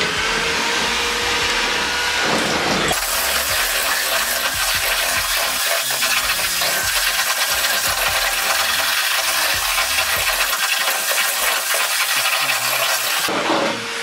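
Electric drill boring through a car's bonnet, a steady harsh grinding of bit on sheet metal that stops shortly before the end.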